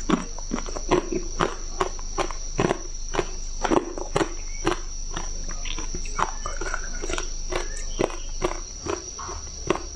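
Chunks of ice crunched between the teeth close to a clip-on microphone, about two sharp crunches a second, thinning out about halfway through. A faint steady high-pitched whine runs underneath.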